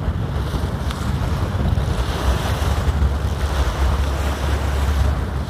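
Wind buffeting the microphone on an open boat at sea, a steady gusty rumble with the hiss of sea wash.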